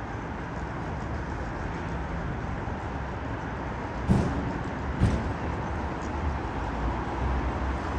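City street ambience: a steady rumble of traffic, with two sharp knocks about a second apart near the middle.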